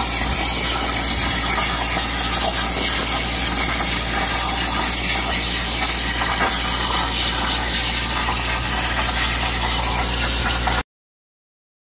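Hypertherm Powermax 45 plasma torch on a CNC table cutting steel plate: a steady, loud hiss of the plasma arc and air with a low hum underneath, cutting off suddenly near the end.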